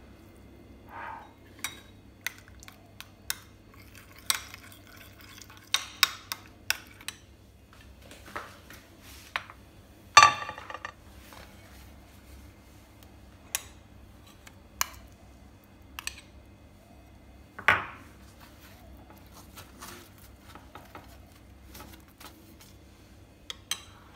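A metal spoon clinking against a glass bowl and a china plate in scattered light taps while a sauce is stirred and spread, with a louder clatter about ten seconds in and another near eighteen seconds.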